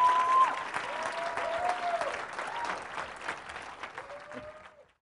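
Audience applauding and cheering, with a few long drawn-out whoops, fading out near the end.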